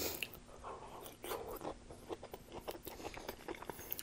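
A person chewing a mouthful of green beans with bacon close to the microphone: a run of irregular soft clicks and small crunches.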